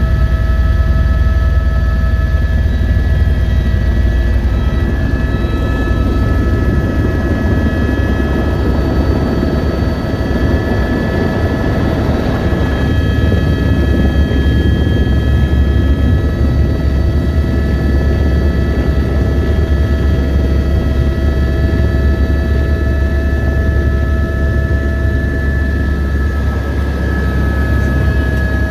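Helicopter's turbine engine and rotor heard from inside the cabin as it comes in to land: a loud, steady low rotor throb with a steady multi-tone turbine whine above it.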